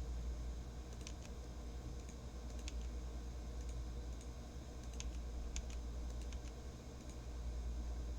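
Faint, scattered clicks over a low, steady hum.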